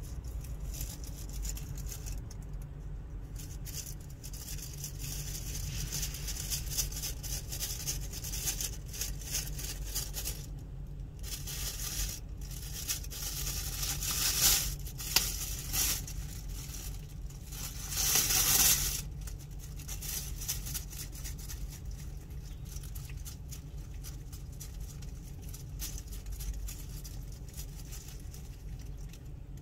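Clear plastic bag crinkling and dry leaves rustling as a cat noses into the bag of food and eats from it: a dense run of crackles, loudest in two short bursts about halfway through and a few seconds later.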